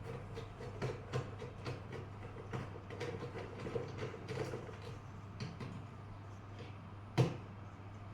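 Irregular small clicks, scrapes and creaks of hands and a tool working on a plastic extension-socket strip during a repair, with one sharper knock about seven seconds in.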